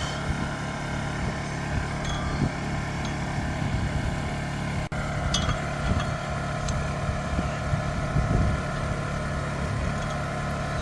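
Portable gasoline generator engine running steadily, with a few light metallic clinks.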